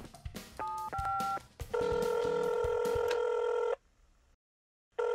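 A mobile phone being dialled: two short touch-tone keypad beeps, then the ringing tone of the outgoing call in the earpiece. The ringing tone is a steady tone lasting about two seconds, stops, and starts again near the end.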